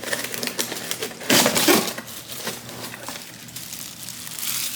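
Clicking and clattering of plastic food-processor parts and their packaging being handled, with a louder burst of rustling and clatter about a second and a half in.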